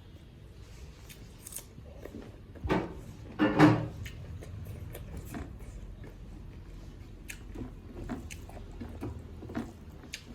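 Close-miked eating: wet chewing and lip-smacking with small mouth clicks throughout, and two louder mouth noises a little under three and about three and a half seconds in, the second the loudest.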